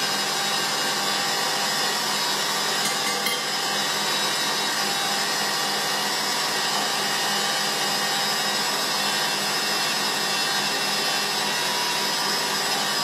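Stand mixer running steadily with a wire whisk beating egg whites into meringue: an even motor whine over the whisk's whirring in the bowl.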